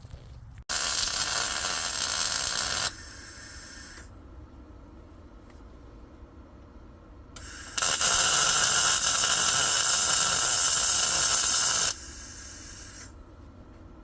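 110-volt Harbor Freight MIG welder laying two weld beads on a Jeep axle's caster adjustment plates: a steady hiss that starts sharply about a second in and stops about two seconds later, then a longer run of about four seconds starting near the eight-second mark.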